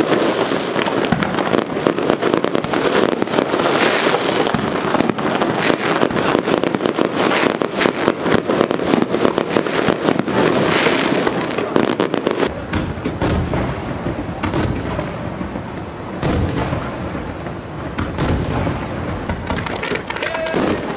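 Fireworks: a dense, continuous crackling and popping of low set-piece fireworks for about the first twelve seconds, then deeper booms of aerial shells bursting overhead.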